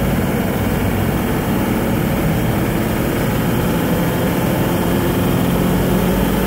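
Hummer H1's turbo-diesel V8 heard from inside the cabin, pulling under acceleration with engine speed gradually rising. Turbo boost is climbing as the wastegate closes fully.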